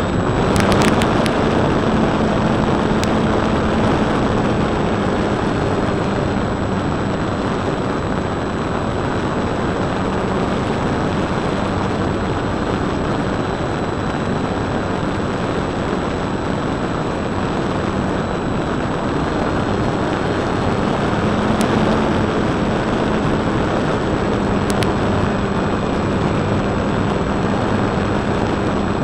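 Motor and propeller of a Precision Aerobatics Extra 260 electric radio-controlled model plane in flight, heard from a camera mounted on the plane and mixed with loud rushing airflow. The motor hum strengthens near the start and again in the last several seconds, over a faint steady high whine.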